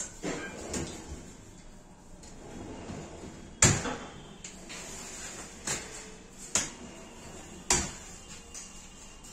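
Aluminium-frame kitchen cabinet doors and drawers being opened and shut: about six sharp knocks and clacks, the loudest a little over a third of the way in.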